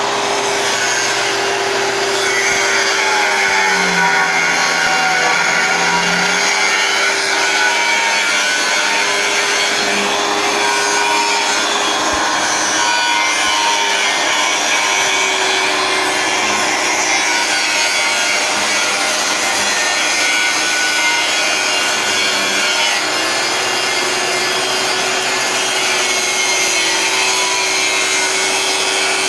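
Electric angle grinder running continuously under load, its disc grinding steel with a steady motor whine and a harsh rasp, smoothing down freshly welded metal on a tractor part.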